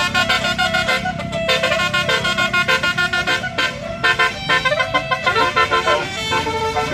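Tour bus "telolet" musical horn playing a quick melody of short, repeated notes that step up and down, over the low rumble of a bus engine.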